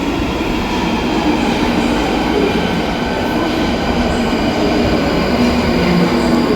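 A passenger train pulling into the station platform: a loud, steady rumble of wheels on rails with squealing wheel tones on top.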